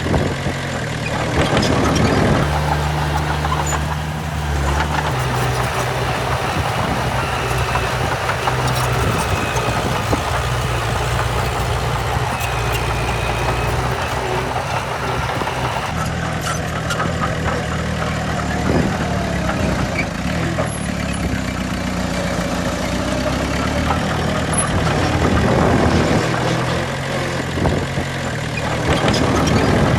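Heavy diesel engines of earthmoving machinery, a bulldozer and dump truck, running continuously. The engine note steps up and down in pitch several times as the machines work under changing load.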